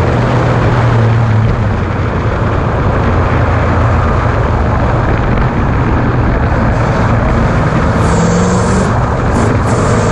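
V8 Ford Ranger race truck running hard off-road: a steady engine hum under a loud rushing noise, the engine note climbing briefly about eight seconds in.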